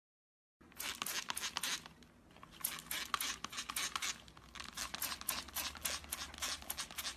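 Houseplant leaves rustling and crackling as they are shaken by hand, in three irregular bursts of crisp crackles, the first starting about half a second in.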